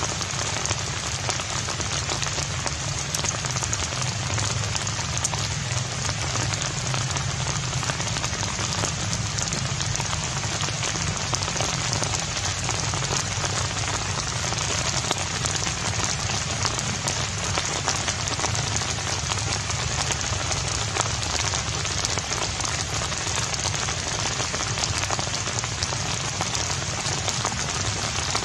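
Steady rain falling, an even patter of drops with no pauses.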